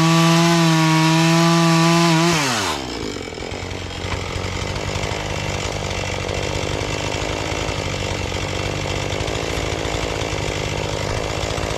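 Husqvarna 435 two-stroke chainsaw running flat out at a steady high pitch. About two seconds in, the throttle is released and the engine winds down to a rough, steady idle.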